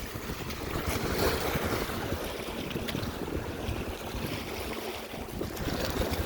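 Wind buffeting the microphone in an uneven, rumbling rush, over the wash of choppy lake waves.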